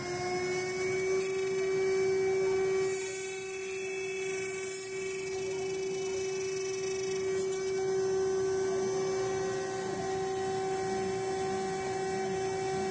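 CNC router milling an aluminium plate: a steady whine from the spindle, rising slightly in pitch at the start, over the hiss of the machine's dust collector, pumps and drive cooling. Very noisy.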